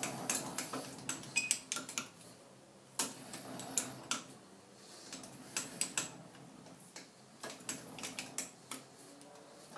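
Scattered, irregular light metallic clicks and clinks of a hex key working socket head cap screws that nip steel fixture plates down onto a lathe carriage.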